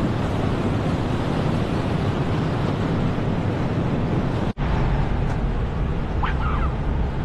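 Wind buffeting the microphone: a steady rushing noise with a low rumble. It cuts out for an instant about four and a half seconds in, then comes back with a heavier rumble, with a faint short high-pitched sound about six seconds in.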